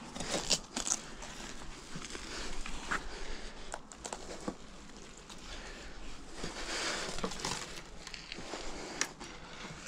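Irregular crunching and crackling with scattered sharp clicks.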